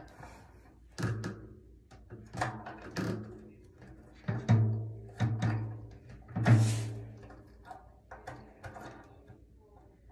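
Floor tom being knocked and bumped by hand while its legs are fitted, giving about ten irregular thuds, each leaving a short low ring from the drum shell.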